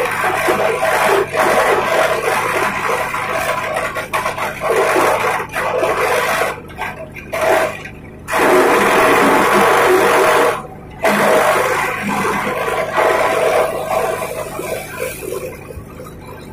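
Grass chopper machine running with a steady motor hum under a dense whirring, shredding noise. The sound drops out sharply twice in the middle and eases off near the end.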